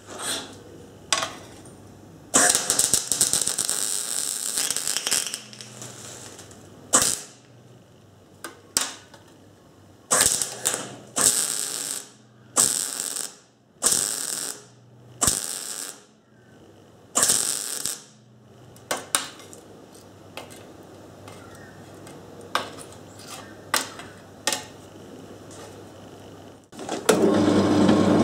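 MIG welder laying spot welds on a hardened handsaw blade to anneal the steel so it can be drilled: a longer crackling burst about two seconds in, then about nine short bursts, each under a second. Near the end a drill press starts running with a steady hum.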